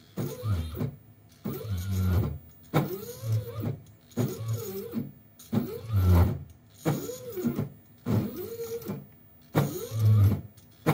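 Z-axis drive motor of a CNC-converted G0704 mill jogging the head down in short moves, about nine of them at roughly one a second. Each move whines up in pitch as it speeds up and back down as it stops.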